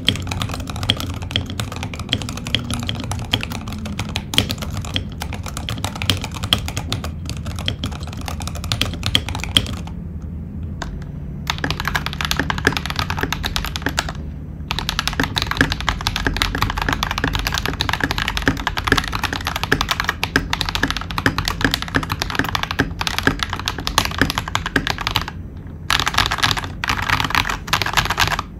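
Fast, continuous typing on two mechanical keyboards in turn, with a few short pauses. First a Womier K87 with stock 67 g Tangerine linear switches, then a TM680 with Akko White switches lubed with Krytox 205g0.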